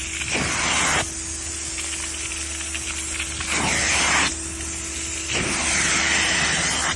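Upholstery steam-cleaning extractor running with a steady hum, with three long hissing bursts of spray as the cleaning solution goes onto the couch fabric.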